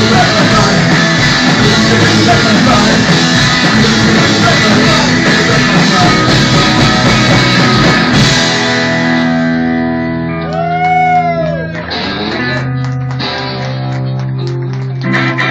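Punk rock band playing loud and live, with electric guitars, bass guitar and drums. About eight seconds in, the full band drops away, leaving held bass and guitar notes, one of which bends up and back down.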